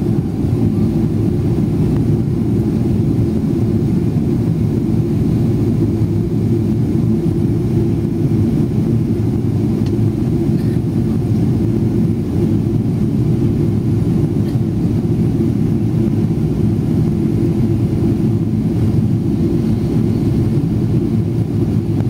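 Steady low drone inside the cabin of a Boeing 777-300ER climbing after takeoff: its GE90-115B jet engines and the rush of air past the fuselage.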